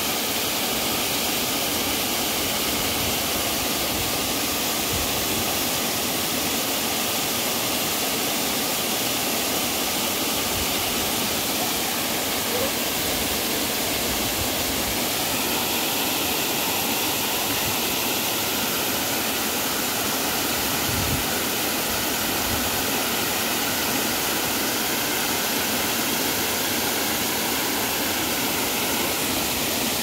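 Waterfall pouring onto rock: a steady, unbroken rush of falling water.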